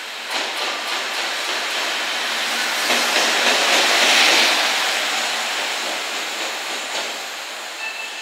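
JR Freight EF210 electric locomotive running light through a station, its wheels clacking over the rails. It grows louder as it passes close about four seconds in, then fades as it draws away.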